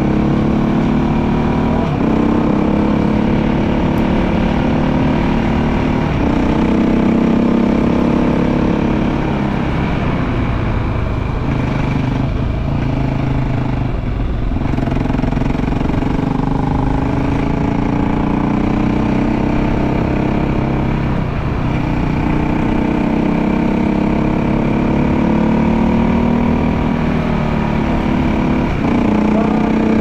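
KTM motorcycle engine running under way. Its pitch climbs and drops again and again as the throttle opens and closes and the gears change.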